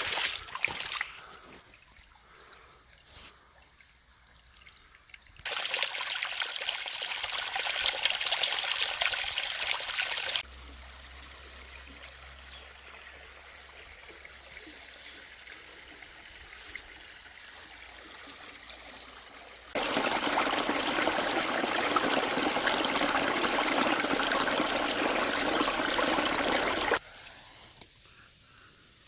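Stream water running and trickling, in separate cuts: faint at first, then a louder flow for about five seconds, a softer flow for about nine seconds, and a loud flow again for about seven seconds that cuts off suddenly near the end.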